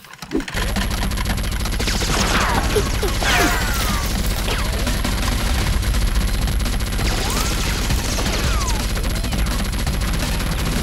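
Rapid, continuous gunfire: a dense fusillade of shots that starts about half a second in and keeps going without a break.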